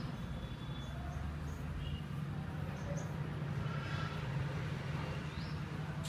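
Small caged parrots giving short, high chirps now and then, one a quick rising cheep near the end, over a steady low hum.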